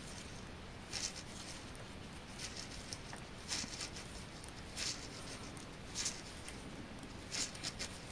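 3 mm knitting needles working a row of knit stitches: about seven faint, short, irregularly spaced scrapes and ticks of the needles.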